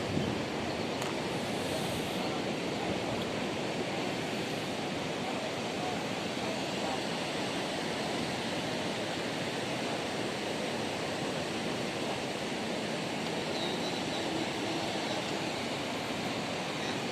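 Steady rushing noise of wind and water with no clear engine tone, even in level throughout.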